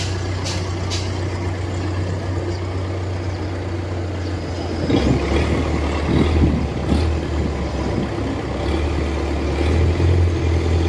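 Engine of a river barge under way, running with a steady low drone. About five seconds in its note drops lower, turns rougher and gets a little louder.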